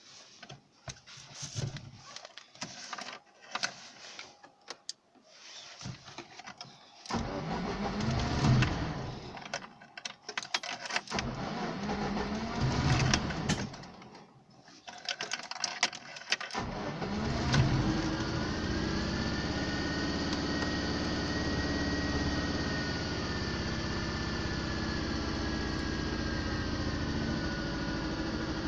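Light clicks and rattles, then a VAZ-2110's four-cylinder petrol engine cranks twice without catching. It catches on the third try and settles into a steady idle, its first start after a repair.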